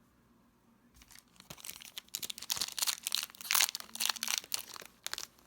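Trading-card pack wrapper being crinkled and torn open by hand: a dense run of sharp crackles that starts about a second in and stops near the end.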